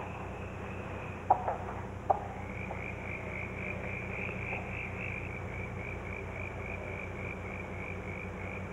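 Night-time chorus of calling animals: a high, steady trill that pulses a few times a second, briefly dropping out about a second in. Two short clicks stand out about one and two seconds in, over a faint low hum.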